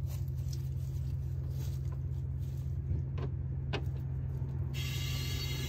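Onboard air compressor running with a steady low hum while the air springs fill toward 30 psi, with two faint ticks about three and a half seconds in. Background music comes in near the end.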